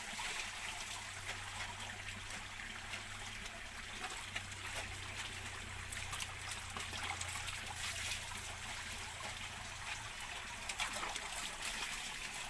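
Water trickling steadily with small irregular splashes, over a low steady hum that stops about ten seconds in.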